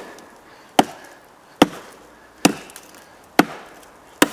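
Tops Knives Bushcrafter Kukri blade chopping into a solid fallen log: five sharp strikes into the wood, evenly spaced at a little more than one a second.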